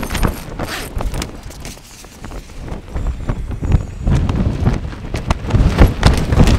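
Hilleberg Soulo tent door zip being pulled open with rustling of the tent fabric, then strong wind gusting over the microphone with a heavy low rumble from about three seconds in.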